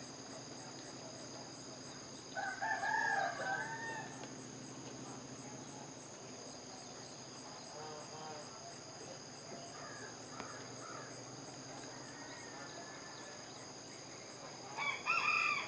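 A rooster crows about two seconds in and again near the end, over a steady high-pitched chorus of insects.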